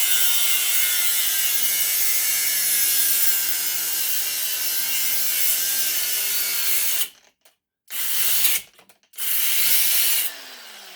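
Electric power tool cutting into a brass and copper water heater valve fitting held in a vise. It runs loudly under load for about seven seconds, stops, and starts again in two short bursts, its motor pitch falling as it winds down near the end.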